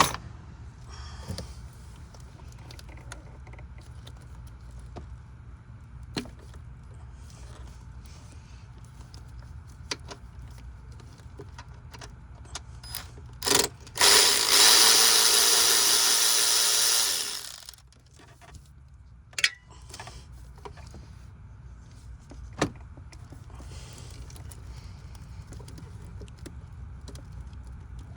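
Ford 4.6L V8 running with a rough misfire that is pretty damn bad, under scattered clicks and knocks of hand work on the engine. Past the middle, a loud whirring runs for about four seconds and then stops.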